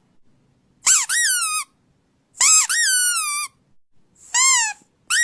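Squeaky dog toy squeezed three times, each squeak a high-pitched call that jumps up and then falls away. The middle squeak is the longest, at about a second, and the last is the shortest.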